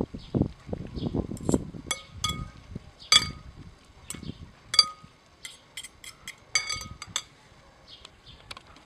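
Metal fork and spoon tossing a cherry salad in a glass bowl: soft wet stirring of the fruit, with repeated ringing clinks of the cutlery against the glass. The clinks thin out over the last second or two.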